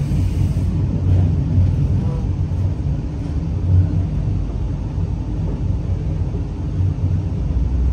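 Steady low rumble inside a moving V/Line diesel railcar: wheels running on the track and the underfloor engine, heard from the passenger cabin.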